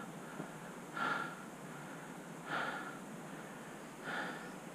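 A man breathing heavily, three loud breaths about a second and a half apart: he is winded from hard mountain-bike riding.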